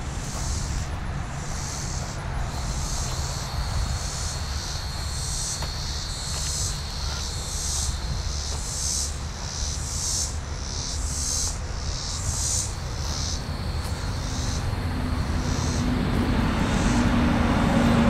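Cicadas calling in the treetops, a chorus of high buzzing that pulses about one and a half times a second and weakens in the last few seconds. A steady low rumble of highway traffic runs underneath and grows louder near the end.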